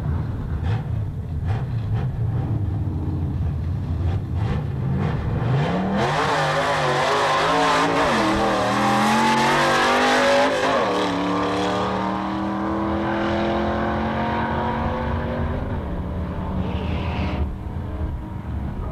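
Fox-body Ford Mustang drag car idling at the start line, then launching about six seconds in. The engine revs up through the gears, with two shifts a few seconds apart that each drop the pitch, and fades as the car pulls away down the strip.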